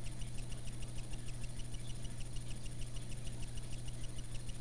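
Aquarium circulation pump running: a steady low hum with a fast, even ticking, about five or six ticks a second.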